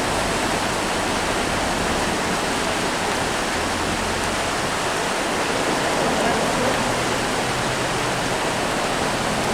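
Meigs Falls, a mountain waterfall, rushing in a steady, even roar of falling water.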